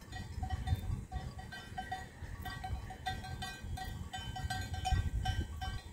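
Cowbells on grazing cattle clanking irregularly, several bells overlapping, over a low rumble.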